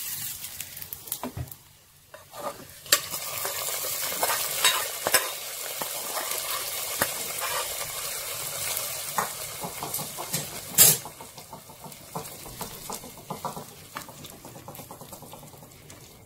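Hot oil tempering of mustard seeds and onions sizzling as it is poured into mutton curry in a pressure cooker, with a metal spoon scraping and clinking against the pans. A sharp clank near eleven seconds, then quieter stirring.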